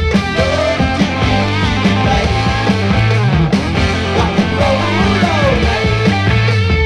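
A rock song played from a 1981 vinyl record, a full band with a steady bass line that glides upward about three seconds in.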